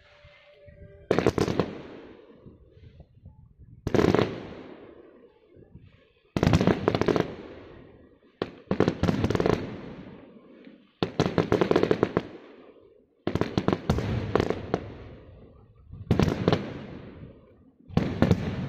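Fireworks going off in a string of volleys, about eight in all, one every two seconds or so, each a sudden burst of rapid crackling bangs that fades away before the next.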